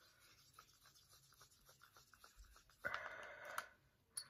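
Wooden craft stick stirring a thinned glue mix in a small plastic cup: faint, rapid little scrapes and taps against the cup, with a short louder rasping noise about three seconds in.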